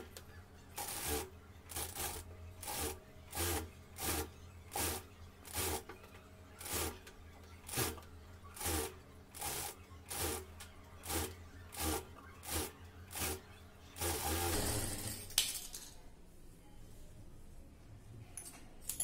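Industrial sewing machine stitching slowly, with a sharp clack at each stitch about one and a half times a second over a low steady hum. About fourteen seconds in there is a second and a half of steadier, denser noise.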